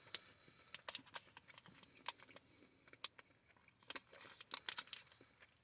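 Faint, scattered clicks and light crinkles of someone eating gummy fruit snacks and handling the snack pouch, with a denser cluster about four seconds in.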